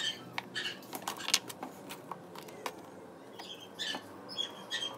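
Light, irregular clicks and taps from hands handling twig sticks and a plastic glue bottle while gluing a miniature stick roof, with short high chirps scattered among them.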